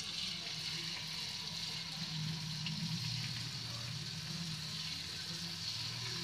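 Potato jalebi batter sizzling steadily in hot ghee as it is piped into the kadhai in coils, with a low steady hum underneath.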